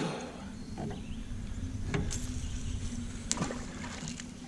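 Handling noises in a small fishing boat: two sharp knocks, about two seconds in and again a little after three, over a low steady hum and rumble.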